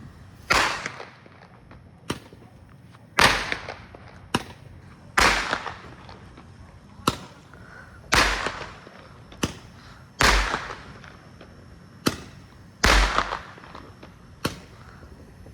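Consumer fireworks firing a series of about a dozen sharp bangs, roughly one every second or so, each trailing off, with louder and softer shots alternating.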